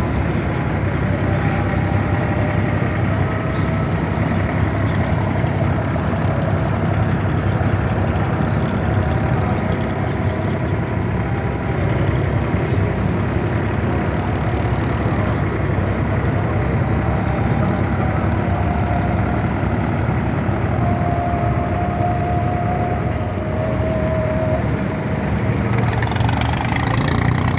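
Steady drone of a wooden abra water taxi's engine, heard on board, with water noise around the hull. Near the end a brighter, busier clatter joins in.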